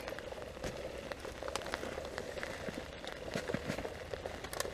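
Rain pattering on the fabric roof of an ice-fishing shelter, heard from inside as many small irregular taps over a steady hiss.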